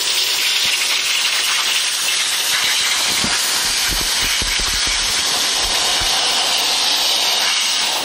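Atrix Omega HEPA pest vacuum running, air hissing steadily into the hose's narrow nozzle as it is drawn along a window sill, with a few low bumps around the middle.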